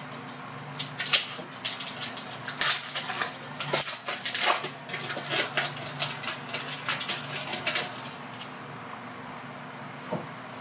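Foil wrapper of a trading-card pack crinkling and crackling as it is torn open and handled: a dense run of sharp crackles that dies away about eight seconds in.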